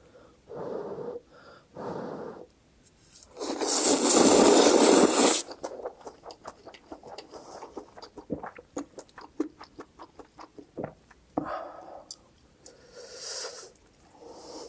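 Instant ramen noodles slurped in one long, loud slurp about four seconds in, after a couple of short breathy puffs. The slurp is followed by close-up wet chewing with quick mouth clicks and smacks.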